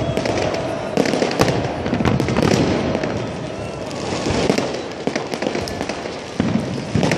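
New Year's Eve fireworks: rockets and firecrackers banging and crackling in quick, overlapping succession, one bang after another with no pause.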